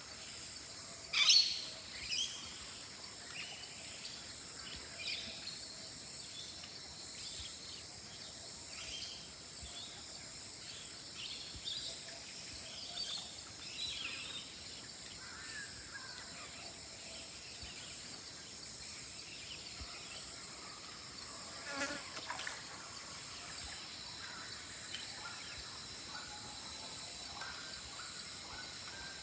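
Bush soundscape: a steady high-pitched insect drone with scattered bird chirps and calls. The loudest is a sharp call about a second in, with another louder call later on.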